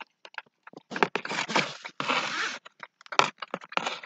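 Tibetan mastiff eating milk from a steel bowl: quick wet lapping clicks throughout, with louder bursts of scraping and slurping noise about a second in and again near the end.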